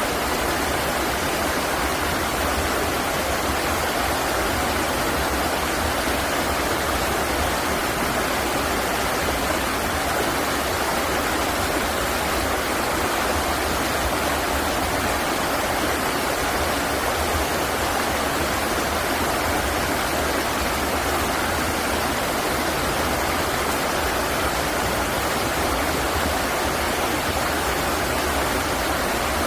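River water rushing steadily, an even, unbroken wash of flowing water.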